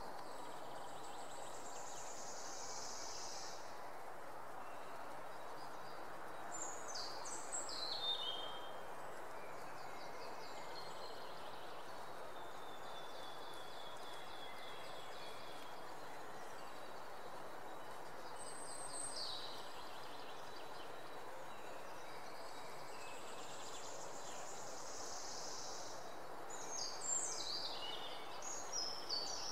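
Birds chirping in short, scattered phrases over a steady outdoor background hiss, the calls loudest near the end.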